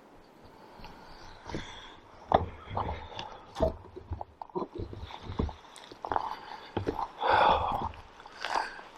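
Footsteps on the forest floor: irregular thuds and rustles at an uneven walking pace.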